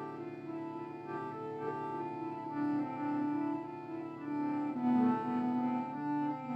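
Slow instrumental music: long held notes moving from one pitch to the next over a steady drone.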